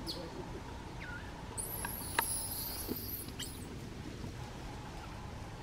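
Baby macaque crying in shrill, high-pitched squeals: a few short chirps, then one drawn-out squeal about halfway through. A sharp click sounds in the middle of the squeal.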